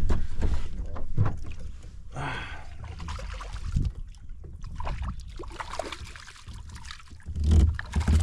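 Steady low wind rumble on the microphone, with scattered knocks and small water sounds while an angler in a kayak reels in a hooked snook. A louder thump comes near the end.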